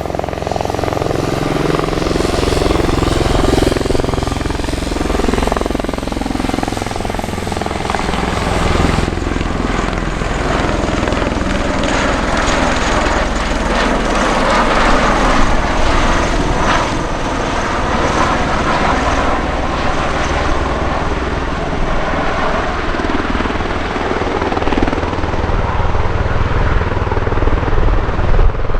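Lockheed P-38 Lightning's twin Allison V-12 engines droning loudly and steadily as the warbird flies its display, the engine note shifting as it passes.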